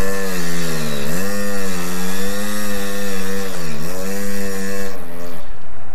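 Small kids' dirt bike engine running at high revs while the rear wheel spins in grass and dirt; its pitch dips sharply twice and recovers, and the engine sound stops near the end.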